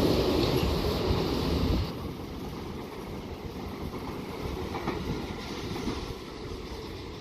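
Tobu Skytree Line electric train passing through without stopping. Its running noise is loud for the first two seconds, then drops off sharply as the train clears, leaving a lower steady rumble.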